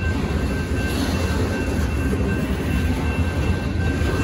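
Freight train's covered hopper cars rolling past at a grade crossing: a steady rumble and clatter of steel wheels on the rails. A high, repeating ding from the crossing's warning bell rings faintly over it.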